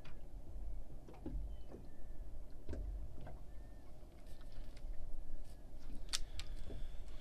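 Boat rod and multiplier reel being handled: scattered light clicks and ticks, with one sharper click about six seconds in, over a steady low rumble.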